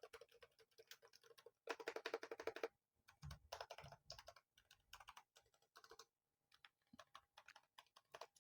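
Keychron K8 Pro SE mechanical keyboard being typed on: a fast run of keystrokes about two seconds in, a few deeper key knocks a little after three seconds, then scattered single key clicks.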